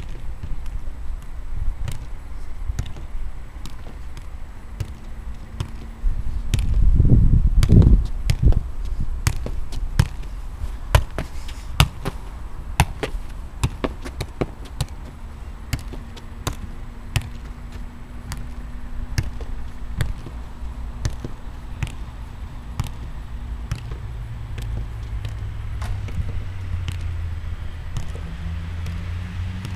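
A football bouncing and being struck on a hard artificial pitch: a long run of sharp, separate thuds. A burst of loud low rumble comes about seven seconds in.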